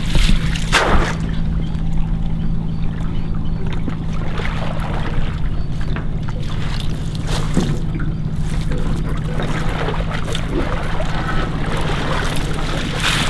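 An oyster boat's engine running at a steady idle, with water splashing and dripping as mesh oyster bags are lifted out of the shallows and turned.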